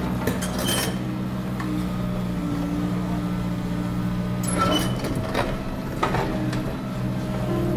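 Komatsu PC200 hydraulic excavators at work: a steady diesel engine drone with a hydraulic whine that shifts in pitch. Metallic clanks and knocks come about half a second in and again several times from about four and a half seconds in.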